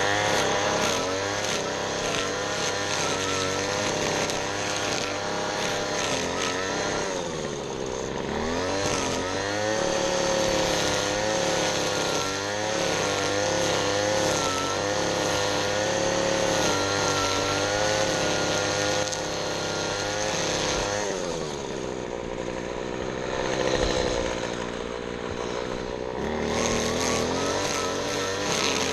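Small gasoline engine of a piece of lawn equipment running steadily under load, its pitch sagging and recovering around eight seconds in and again for a few seconds near the end.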